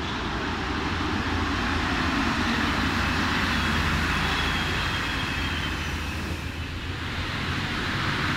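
Paris Métro MP73 rubber-tyred train pulling into the platform and running past at close range, a steady rumbling noise that swells as the cars go by. A faint high whine comes in about a third of the way through and fades out again.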